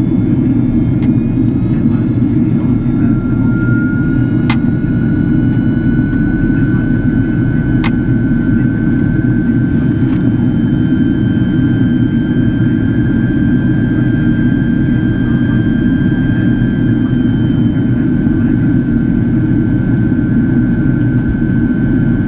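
Cabin noise inside a Boeing 767-400ER in flight: a steady deep roar of airflow and jet engines. Over it runs a thin high engine whine that rises a little in pitch about three seconds in and then holds. Two brief clicks come about four and eight seconds in.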